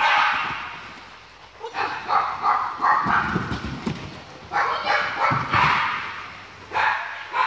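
A dog barking excitedly and repeatedly while running an agility course, in quick clusters of barks.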